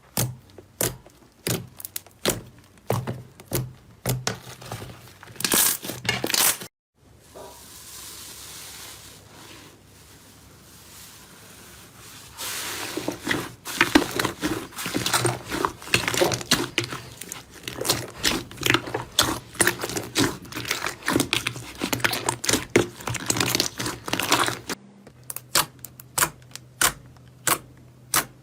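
Slime being squished and pressed by hand, making dense sticky crackles and pops. About seven seconds in the sound cuts off to a few seconds of soft hiss, the crackling comes back thick, and after another cut near the end it thins to scattered pops.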